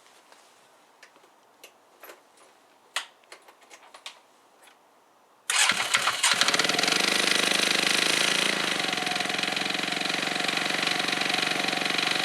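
Suzuki Vecstar 150 scooter's single-cylinder four-stroke engine starting suddenly about five and a half seconds in, after a few faint clicks, then running steadily. It has an abnormal noise whose cause is unknown.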